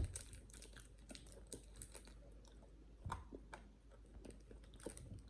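Faint chewing and crunching of small hard strawberry-mint candies, with scattered little clicks and a louder click about three seconds in.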